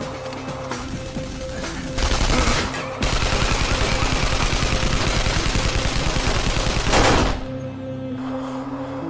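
Automatic gunfire: scattered shots for the first two seconds, then long, very rapid strings of machine-gun fire, loudest from about two to seven seconds in, stopping suddenly. Dramatic background music with held tones runs underneath.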